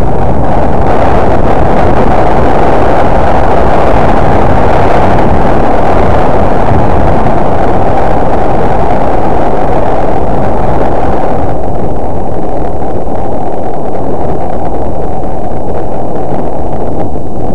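Loud, steady rush of wind buffeting the camera microphone while snowboarding downhill, a dull roar with no distinct events; the higher hiss drops away about twelve seconds in.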